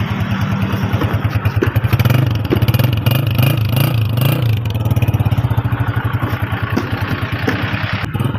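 Honda CG125 motorcycle's single-cylinder four-stroke engine running at idle just after starting, with a fast, even exhaust beat. The pitch wavers slightly a couple of seconds in, then settles.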